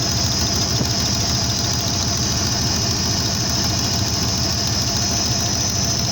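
Holden Commodore's 5-litre V8 engine idling steadily, with a dense rapid pulsing low rumble and a steady high hiss over it.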